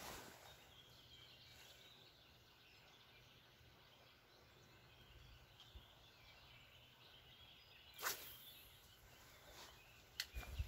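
Near silence: faint outdoor ambience with faint bird chirps, a brief swish about eight seconds in and a short click near the end.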